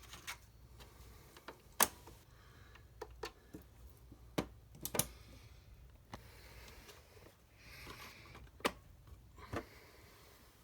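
Cricut cutting machine running, giving a string of irregular sharp clicks and knocks with a short whir about three quarters of the way through. This is the operating noise the owner calls loud.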